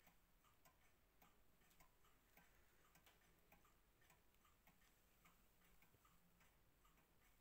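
Junghans pendulum wall clock ticking faintly and steadily, a little under two ticks a second.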